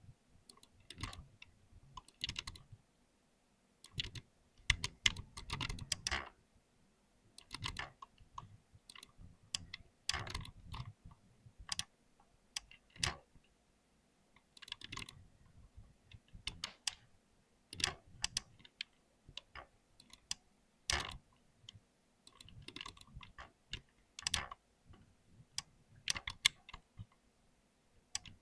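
Typing on a computer keyboard: quick runs of clattering key clicks in irregular bursts, broken by short pauses.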